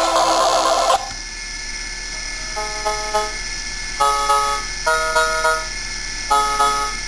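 Commodore 64 SID chiptune played by an emulated SID chip on a Parallax Propeller microcontroller. The music drops out about a second in, leaving a steady hum. It then comes back as short, clipped chords, in groups about once a second.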